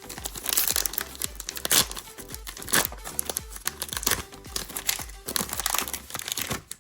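Foil trading-card pack wrapper being torn open and crinkled in the hands, a run of irregular crackles and rips, over quiet background music.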